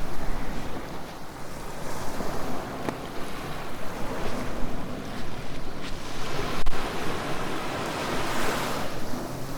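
Surf breaking and washing up on a beach, a steady rush that swells and falls back with each wave, with some wind on the microphone.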